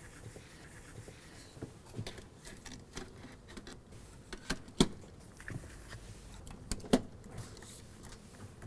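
Plastic CAPAROC circuit breaker modules being handled and snapped onto a current rail on a DIN rail: scattered light clicks and scrapes, with the sharpest snaps about five and seven seconds in.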